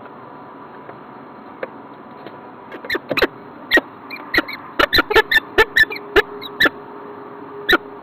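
Peregrine falcon tearing at a green woodpecker carcass on its metal nest ledge. About a dozen sharp knocks and clicks start about three seconds in, irregular and roughly two a second, over a steady background hiss.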